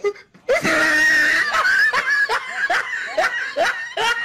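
A person's long, high-pitched scream that breaks into rapid laughter, short bursts about three a second.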